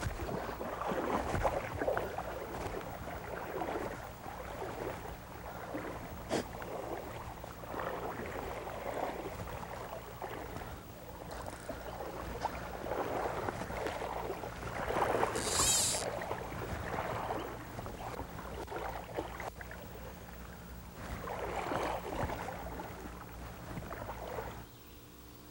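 Legs wading through shallow river water, the water swishing and sloshing around them in a surge every couple of seconds with each stride. A brief sharp hiss about fifteen seconds in is the loudest moment.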